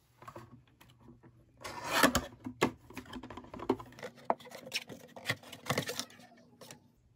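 Paperboard box of a reusable tumbler being opened by hand: the end flap is pulled open and the tumbler slid out, a run of rubbing and scraping with sharp taps and clicks, loudest about two seconds in.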